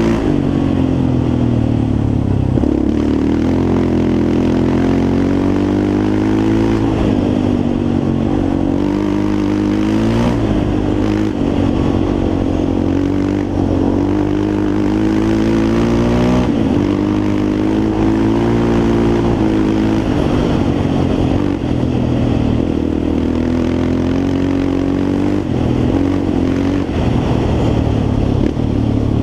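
Yamaha Raptor 350 quad's single-cylinder four-stroke engine running hard, its revs rising and falling every few seconds as the throttle is worked.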